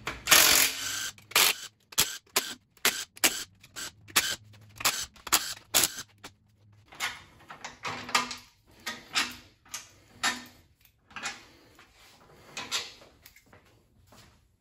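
A short burst of a cordless drill with a socket spinning oil pan bolts out, then a long irregular run of sharp clicks and knocks as the loosened bolts are handled and pulled from the pan.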